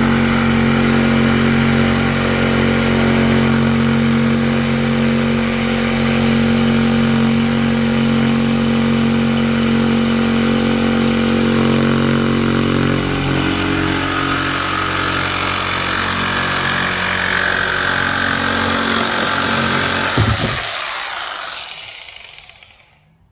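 Corded electric jigsaw running steadily as it cuts a round opening through a fiberglass boat deck. About 20 seconds in there is a sharp knock, then the saw is switched off and its motor winds down to silence.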